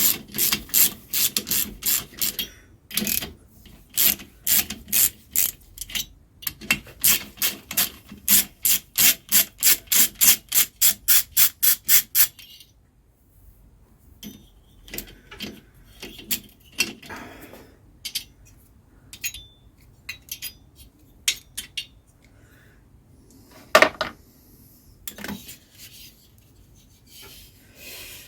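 Ratchet spanner clicking in quick, even strokes, about three a second, as nuts are undone on a BSA Bantam B175 engine, then stopping about twelve seconds in. After that come scattered tool clicks and metal knocks, with two louder knocks near the end.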